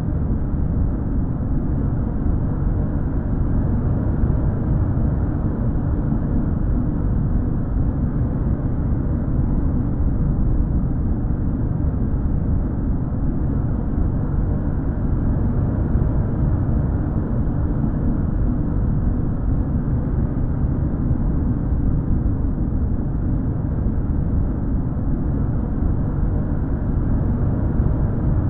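A steady low rumble that stays even, without any clear pitch, rhythm, or separate events.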